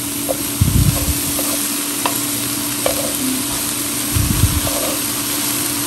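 Julienned jicama and carrot stir-frying in a hot pan: a steady sizzle, with wooden chopsticks clicking against the pan as the strips are turned. A steady low hum sits underneath, and there are two low thumps, about half a second in and about four seconds in.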